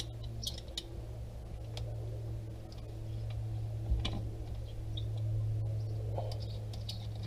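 Faint, scattered metallic clicks and ticks as the nut on a clamp-in TPMS sensor's aluminum valve stem is turned by hand, the clearest about four seconds in, over a steady low hum.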